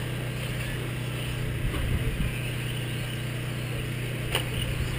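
Radio-controlled off-road race cars running on a dirt track, their motor pitch rising and falling as they accelerate and slow, over a steady low hum. A sharp click about four seconds in.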